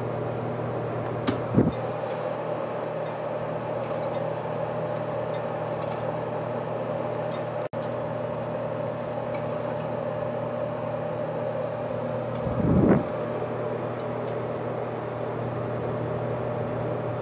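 Whitfield pellet stove's blower running steadily on high: a constant mechanical hum with a steady tone over it. Two brief low thuds break through, about a second and a half in and near the three-quarter mark.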